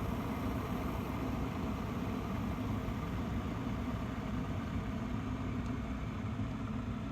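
Peach Street Speed-Boil 1500 W glass electric kettle heating water: a steady low rushing noise as the water comes up toward the boil.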